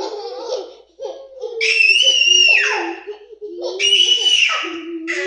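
Young children making noise: two loud, high-pitched squealing shrieks, the first about two seconds in and lasting over a second, the second shorter near four seconds, with lower voice sounds between them.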